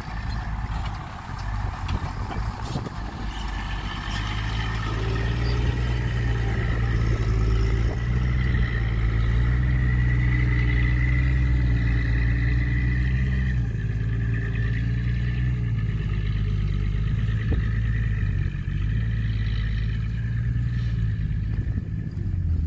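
Loaded Hyundai dump truck's diesel engine pulling steadily as the truck drives off across a field. The engine grows louder over the first few seconds, and its note shifts about two-thirds of the way through.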